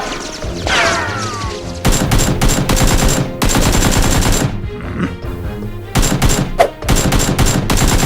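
Bursts of rapid automatic gunfire, the kind of dubbed gun sound effects laid over a Nerf battle film. Near the start, a few falling ringing tones come before the first long burst.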